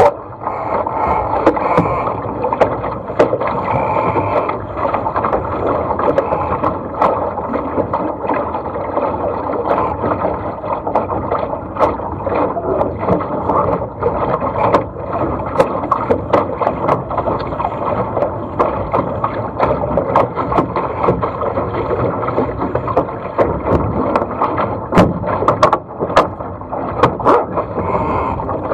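Water rushing and splashing along a small sailing dinghy's hull as it sails through choppy water, a steady dense wash broken by frequent sharp ticks and slaps of spray and waves.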